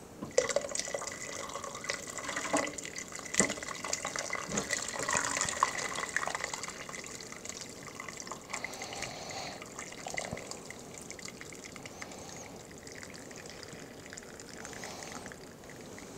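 Chicken stock poured from a stainless steel pot through a fine-mesh strainer into a plastic container, splashing and trickling, with a sharp tap about three seconds in. The pour is strongest over the first half and thins to a lighter dribble as the pot empties.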